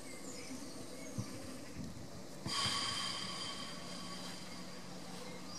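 A goat snorting once, suddenly and fairly loudly, about two and a half seconds in, over a faint outdoor background of birds and insects.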